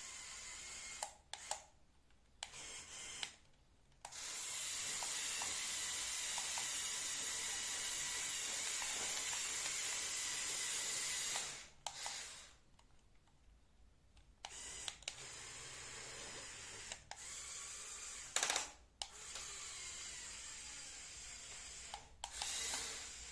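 Small LEGO Power Functions electric motors and their plastic gearing whirring in stretches of several seconds, switched on and off by remote control, with brief silences between.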